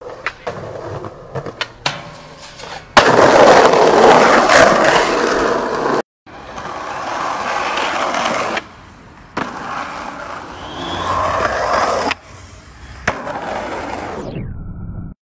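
Skateboard sounds on outdoor pavement: sharp clacks of the board popping and landing, wheels rolling on asphalt, and a loud rough stretch of noise a few seconds in.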